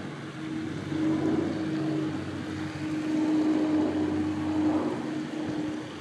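A steady motor hum: a low pitched drone that swells and eases slightly in loudness.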